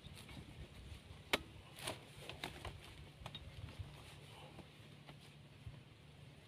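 Faint handling noise: scattered light clicks and rustles over a low steady hum, the sharpest click about a second and a half in.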